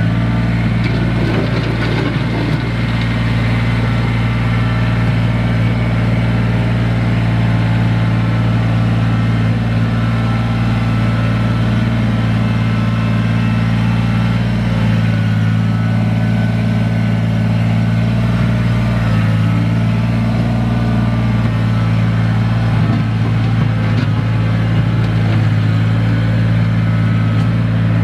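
Kubota BX23S compact tractor's three-cylinder diesel engine running steadily while its front loader pushes dirt back into a trench.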